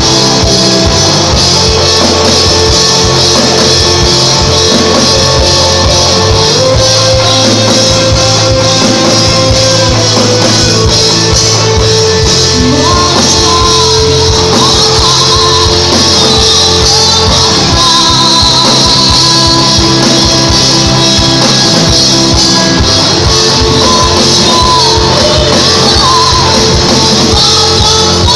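Live rock band playing loud, with electric guitars and a drum kit. A lead singer's voice comes in over the band about twelve seconds in.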